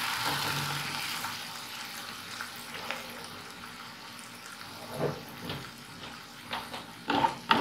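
Chopped onions sizzling in hot oil in a nonstick pan as they fry and soften. A few sharp knocks come near the end.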